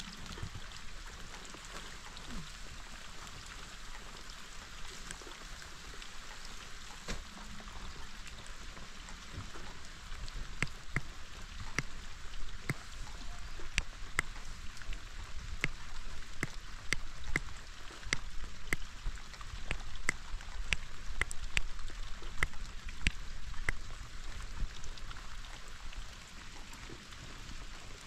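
Steady rain, with single drops ticking sharply on a nearby surface, coming thicker and louder from about a third of the way in and easing off near the end.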